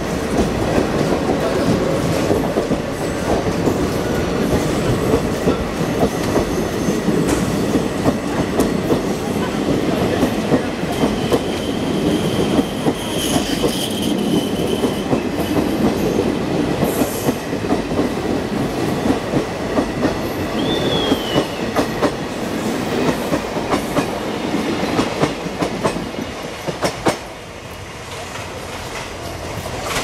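Express passenger train coaches rolling past at speed: a steady rumble of wheels with rapid clickety-clack over the rail joints, and a thin high wheel squeal about halfway through. The sound turns quieter over the last few seconds.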